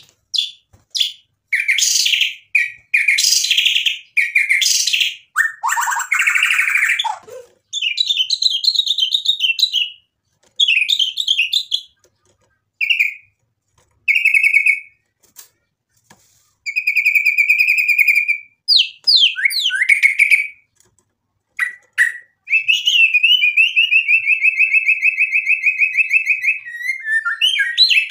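White-rumped shama singing a long, varied song in separate phrases with short pauses: harsh scratchy notes, short clear whistles, quick trills, and a long even trill near the end, the shama's repertoire of mimicked material.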